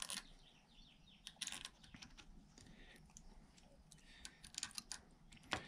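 Faint, irregular small clicks and taps of metal parts being handled as the spacer and solenoid are fitted onto a 7.3 Powerstroke HEUI diesel injector.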